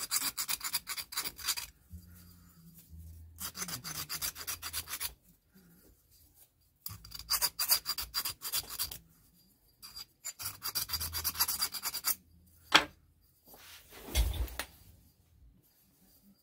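Hand file rasping around the laser-cut inside edge of a 3/8-inch steel indexing plate, deburring it: four bursts of quick strokes, each a second and a half to two seconds long, with pauses between. Near the end comes a sharp clack, the loudest sound, then a short scrape and a low thump.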